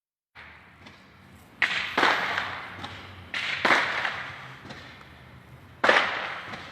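Five distant firecracker bangs, sharp and echoing, each trailing off over about a second: two close together, another pair, then a single one near the end.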